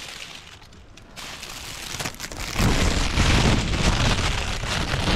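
Thin plastic bag crinkling and rustling right against the microphone, turning loud about two and a half seconds in.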